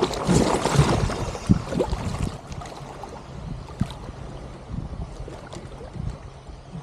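Water splashing and sloshing with sharp knocks against a small paddle craft's hull, busiest in the first two seconds, then quieter lapping with wind on the microphone.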